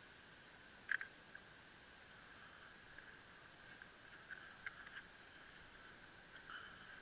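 Near silence: a faint steady hiss, with one sharp click about a second in and a few softer clicks and handling noises a few seconds later.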